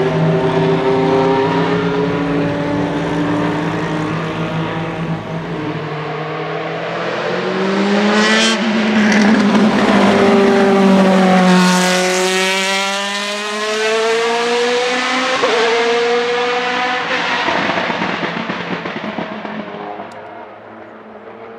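Zytek V8 of the MG-AR1 Furore race car, first running at a steady note as the car pulls away and fades, then passing close by a little over ten seconds in, loudest as it goes past with the engine note dropping in pitch as it moves away and fades out.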